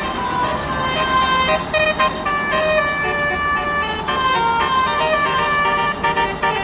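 Bus 'telolet' Basuri musical horn playing a melody: a run of held horn notes that step from pitch to pitch, with short breaks between phrases.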